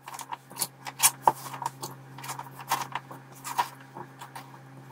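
Raw potato sticks gathered by hand off a plastic cutting board and dropped into a glass bowl of water: a run of irregular light taps and clicks.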